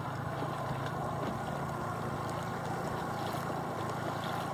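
Steady low hum of a small motorboat's engine running, with the wash of water around the hull.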